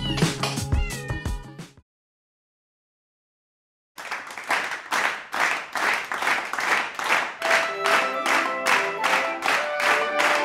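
Music with cat meows mixed in, fading out about a second and a half in. After about two seconds of silence, music starts again: a quick, steady beat of sharp clap-like hits, with melody notes joining about halfway through.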